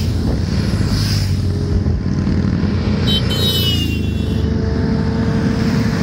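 Motorcycle engines of a passing group ride, a steady low rumble. A brief high tone sounds about three seconds in.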